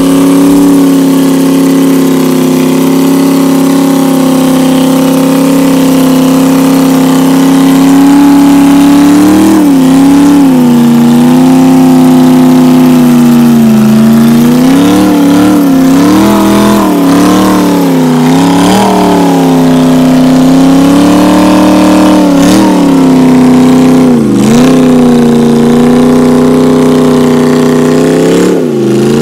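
Off-road 4x4 competition truck's engine running at high revs, its pitch dipping and recovering again and again as it labours to push the mud-packed tyres through deep mud, with a couple of sharp knocks late on.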